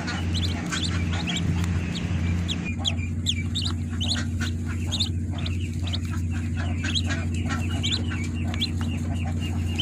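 Newly hatched ducklings peeping: many short, high chirps in quick, irregular succession, over a steady low hum.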